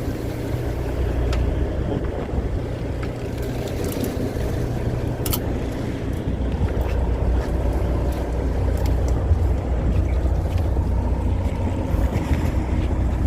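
Fishing boat's engine running with a steady low hum, with wind on the microphone and a few faint clicks on deck.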